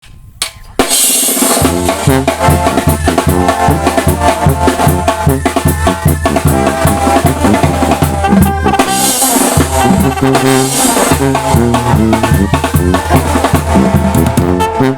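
Sinaloan banda music: brass horns over a low tuba bass line, with bass drum, snare and cymbals keeping a strong beat. The band comes in with a cymbal crash just under a second in.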